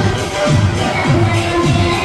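Loud dance music played over a party's sound system, with a steady deep beat about twice a second.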